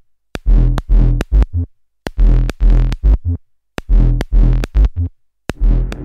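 Make Noise Strega patched with a 0-Coast and sequenced by a 0-Ctrl, playing a repeating pattern of short, percussive synth notes with deep bass and sharp clicky attacks. The notes come in quick runs that repeat about every second and a half, broken by brief silences.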